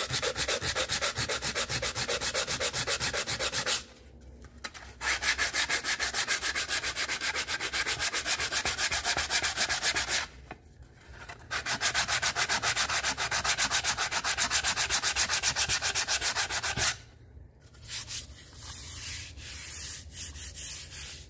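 Hand block-sanding of an aluminum car seat molding: sandpaper on a block rubbed over the metal in quick back-and-forth strokes. The strokes come in three long runs with short pauses about four and ten seconds in, then turn lighter and quieter near the end. The sanding is knocking down the high spots in the dented, wavy trim.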